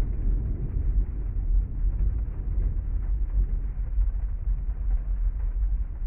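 Muffled rain ambience heard from inside a parked car's cabin: a steady, deep, noisy rumble with no distinct drops or tones.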